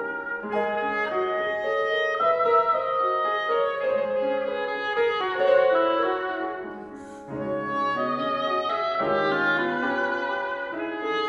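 Oboe and piano playing classical chamber music, the oboe carrying a continuous melody over the piano accompaniment. About two-thirds through the music eases off briefly, with a short hiss, then picks up again.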